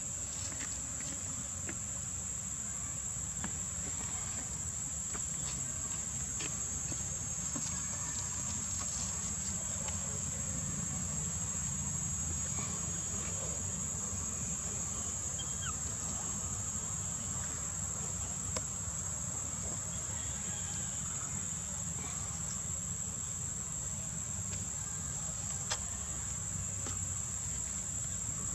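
Steady, high-pitched chorus of insects, with a low rumble underneath and a few faint clicks.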